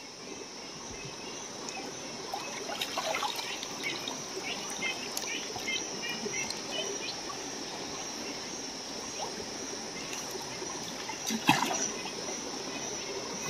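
Shallow stream water trickling, with small irregular splashes, over a steady high chirring of insects.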